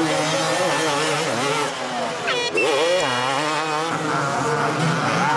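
250cc two-stroke motocross motorcycle engines revving up and down through the gears, with one bike revving sharply upward about two seconds in.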